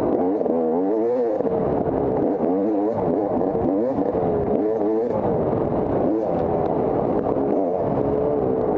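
Dirt bike engine revving up and down over and over, its pitch rising and falling about every second as the throttle is worked.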